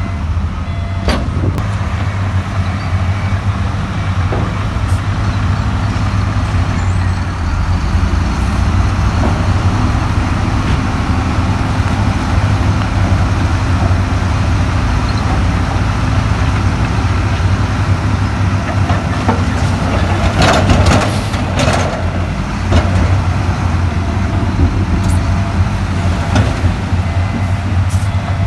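Heavy diesel earthmoving machinery, a bulldozer or dump truck, running steadily with a deep engine drone. A cluster of sharp metallic knocks and clanks comes about twenty seconds in.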